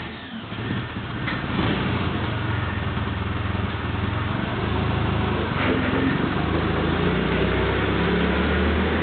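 1972 Clark IT50 forklift's Continental four-cylinder flathead engine, converted to propane, running steadily under light throttle after starting, with a few faint knocks.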